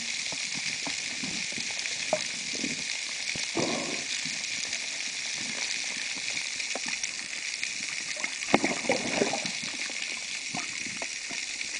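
Underwater ambience picked up by a camera in its housing: a steady crackling hiss, with scattered knocks and short thuds, the loudest about two-thirds of the way through.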